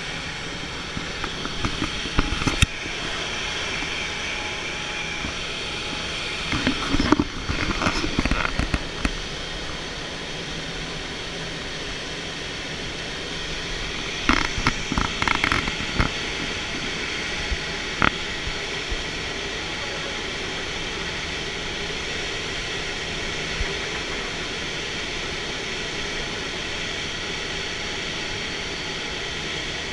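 Steady rushing drone of an aircraft in flight, heard from inside the cockpit, with a few short clusters of knocks and rattles.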